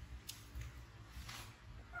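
Quiet pause between a baby monkey's whimpering cries: a small click, a soft breathy rustle about a second in, and the faint start of a short squeak at the very end, over a low background rumble.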